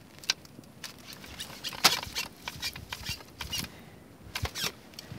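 Irregular crunching and scraping in snow, with a sharp crunch about two seconds in and a quick run of crunches near the end.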